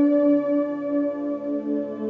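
Ambient background music of sustained, ringing tones, changing to a new chord about a second in.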